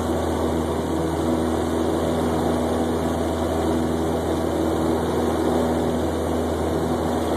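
Steady drone of a single-engine light aircraft's piston engine and propeller, heard from inside the cabin, as the plane climbs out just after takeoff.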